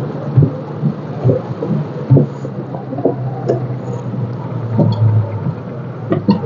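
Inside a vehicle's cabin while driving in heavy rain: a steady low engine hum under the hiss of rain on the windscreen and body, with irregular low thumps every second or so.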